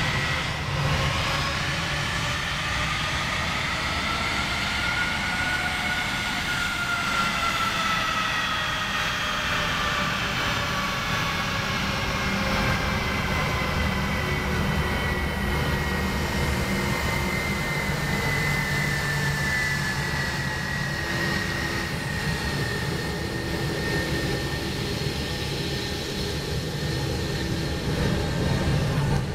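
Twin turbofan engines of an Airbus A320-family jetliner taxiing at low thrust: a steady whine over a low rumble. The whine's pitch rises over the first several seconds as the plane approaches, then slowly falls as it passes and turns away.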